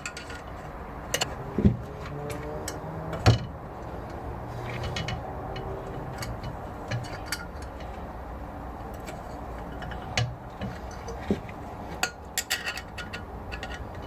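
Metal clicks and taps of a screwdriver prying at the valve collets under a compressed valve spring on a Rover V8 cylinder head. There are a few sharp knocks in the first few seconds and a quick run of clicks near the end.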